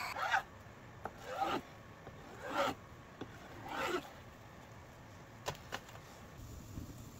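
Four short scraping strokes about a second apart, each falling in pitch, followed by two light clicks.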